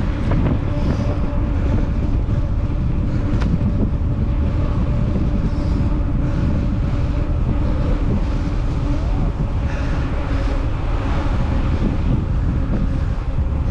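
Wind rushing over the microphone, with a steady low hum underneath.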